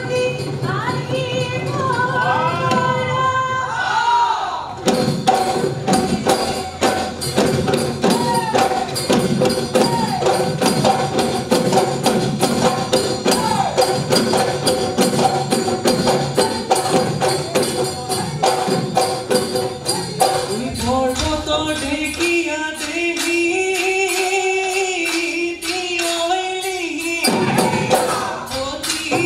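Bihu folk music: a singing voice, joined about five seconds in by dhol drums and jingling percussion playing a fast, driving beat.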